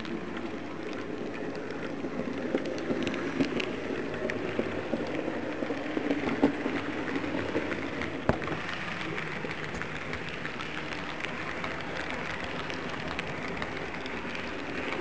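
Model train of red freight wagons behind a model steam locomotive rolling past on the track: a steady rolling rattle of small wheels on the rails, full of fine clicks and a few sharper ticks, loudest as the wagons pass close.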